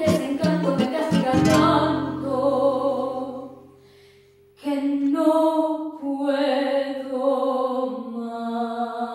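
A female voice sings a vals accompanied by two acoustic guitars. Plucked guitar notes come first, then she holds a long note that fades into a brief pause about four seconds in, and she resumes with long held notes.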